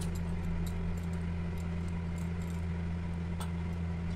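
A steady low hum, with a few faint light clicks as small pieces of ginger are cut and dropped into a steel mixer jar of soaked chana dal.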